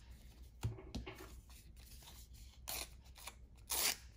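Paper sticker pack and stickers being handled: two soft knocks about a second in, then short crinkling, rustling bursts of paper near the end.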